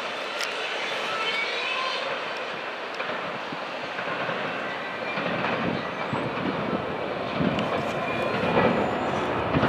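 Norfolk Southern double-stack intermodal freight train rolling away down the line, with a steady rumble of steel wheels on the rails and some clickety-clack from the passing cars.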